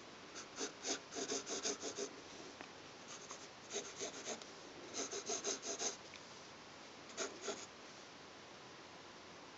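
Graphite pencil scratching on paper in quick back-and-forth sketching strokes, in four short bursts.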